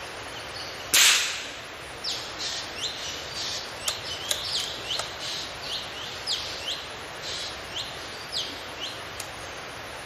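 A single gunshot about a second in, a sharp crack with a short fading tail. Then a bird gives a long run of quick downward-sweeping chirps, about two a second, until near the end.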